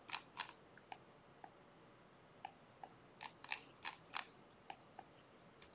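Computer mouse clicking: about a dozen faint, irregular clicks as lines are erased one by one.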